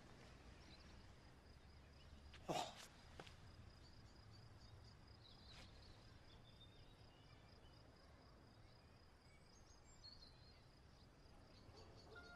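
Near silence: faint outdoor ambience with a low steady hum, one brief noisy sound about two and a half seconds in, and a few faint high chirps.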